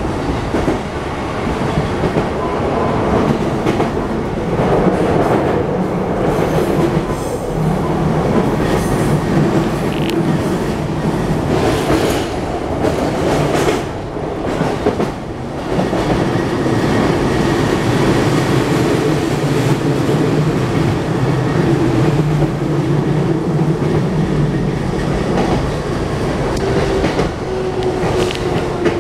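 Cabin running sound of a JR East E233-1000 series electric train: wheels clacking over rail joints under a steady hum from its Mitsubishi IGBT-VVVF inverter and traction motors. Near the end the motor tone falls slightly as the train slows into a station.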